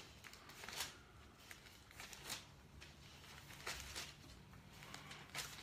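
Near-quiet room with a faint steady hum and a few soft paper rustles, Bible pages being turned as a verse is looked up.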